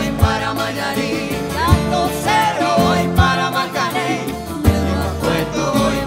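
A small Latin band playing live: acoustic guitar with singing voices over a steady beat, a low thump coming about every one and a half seconds.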